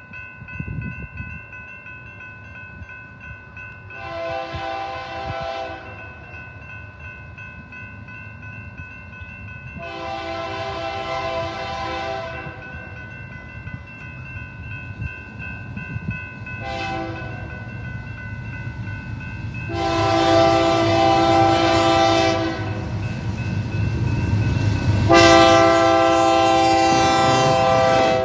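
Union Pacific diesel freight locomotive's multi-tone air horn blowing for a grade crossing as the train approaches: two long blasts, a short one, then two more long blasts, each louder than the last. A steady crossing-signal bell rings underneath, and the locomotive's low rumble builds as it nears.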